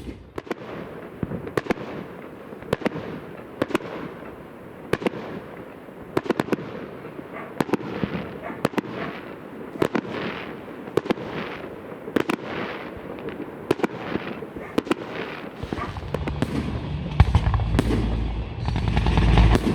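Fireworks display: shells bursting one after another, sharp bangs about one a second, each trailing off in a fading echo. Over the last few seconds a low rumble grows louder.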